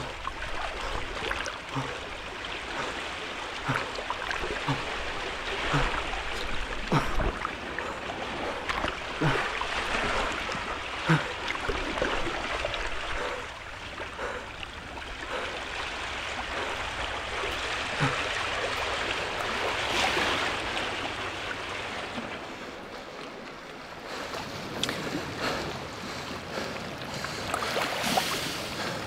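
Sea water surging and waves washing in a steady rush, with scattered short low knocks and clicks through the first half.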